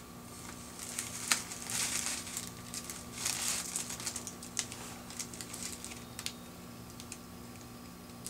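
Clear plastic sheeting hanging from a plastic cup crinkles as the cup is handled: two longer rustles about two and three and a half seconds in, with scattered small clicks and crackles between them.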